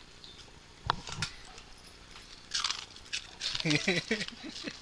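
A dog biting and crunching a fried snack, with two sharp crunches about a second in. A person's voice comes in near the end.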